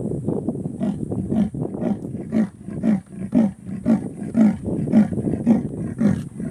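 Female leopard giving her territorial call, the rasping 'sawing' call: a series of deep grunting strokes, coming faster at first and then settling to about two a second. It tells other leopards that this is her territory.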